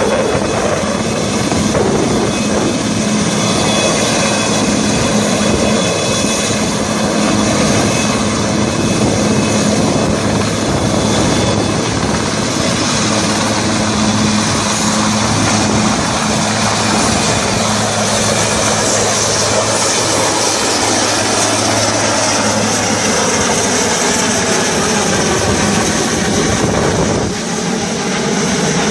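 Westland Sea King Mk42 helicopter flying with a vehicle slung beneath it: the steady chop of the main rotor over the whine of its twin turboshaft engines, loud and unbroken, with a brief dip in loudness near the end.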